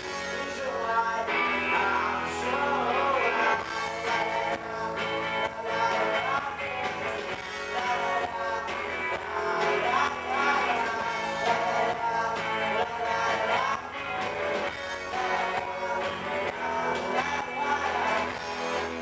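Live rock band playing a song through the venue's PA: electric guitars, bass guitar and a drum kit keeping a steady beat, with a lead vocal.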